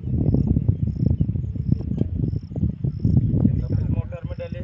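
A cricket chirping in short, evenly spaced high pulses about twice a second, over a loud, uneven low rumble.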